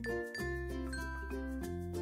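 Background music: a light melody of short notes over held bass notes.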